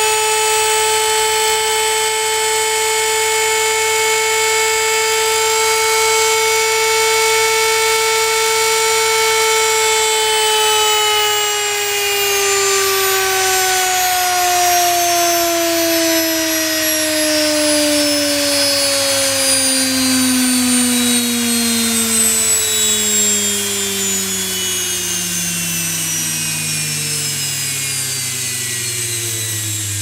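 G&J 2UA014C washing-machine universal (brushed commutator) motor, freshly repaired, running unloaded with a steady high whine. About ten seconds in it begins slowing down, its pitch falling smoothly and continuously as it coasts.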